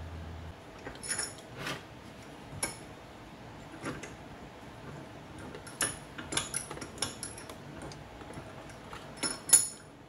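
Scattered sharp metallic clicks and clinks from metal tools and a steel bench vise being handled, some ringing briefly; the loudest clink comes near the end.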